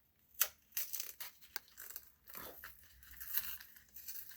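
Foil Pokémon booster pack wrapper being torn open and crinkled by hand: irregular crackles and rips with a sharp snap about half a second in.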